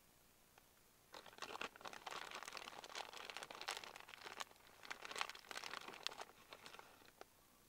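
Clear plastic zip-top bag crinkling and rustling as a hand works in it for shredded cheese. The rustling starts about a second in, comes in irregular rustly spells full of small sharp crackles, and stops shortly before the end.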